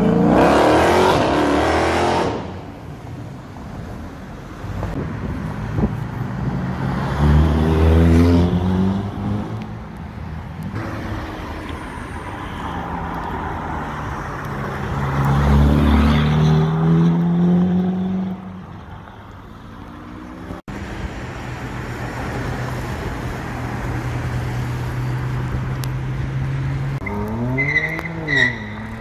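High-performance car engines accelerating hard and passing by, one after another, with loud exhaust noise rising in pitch. This is followed by a steady engine drone and then a few quick rev blips near the end.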